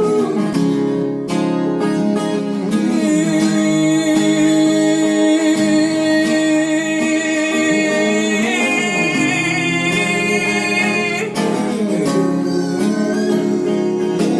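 Slow worship music with long held chords and a wordless voice line drifting over them.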